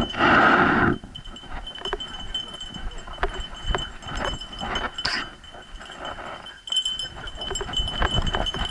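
A dog running in harness on a dirt trail, heard through the action camera strapped to its back: irregular thumps of footfalls and the camera jolting, with metal jingling from the harness gear. A loud rushing burst lasts about the first second.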